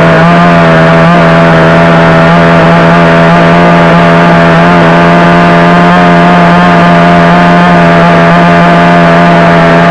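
62cc two-stroke chainsaw held at full throttle, running at a steady high pitch while cutting into a carob branch. The revs start to drop away at the very end as the throttle is released.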